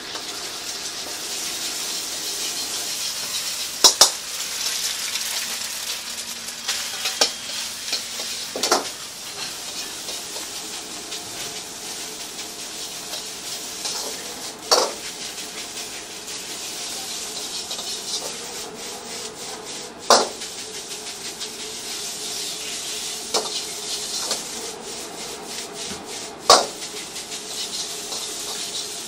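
Rice and egg sizzling in a wok while a metal ladle stirs and scrapes it, with a sharp clank of the ladle against the wok every few seconds.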